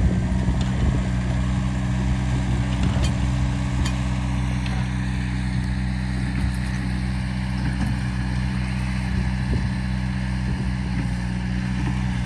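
Tractor diesel engine running steadily while moving dirt, its pitch holding even.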